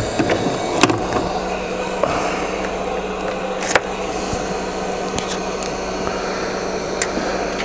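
Steady fan or blower noise from the repair bench, with a low hum that comes in about a second in. A few sharp clicks and taps, the loudest near the start and a little before the middle, come from tools and test leads being handled on the bench.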